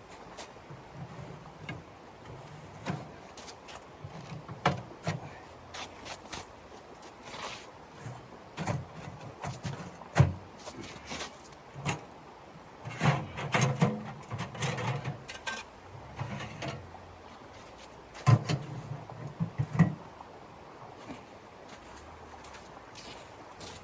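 Irregular knocks and thumps, some coming in quick clusters, like objects being handled and set down.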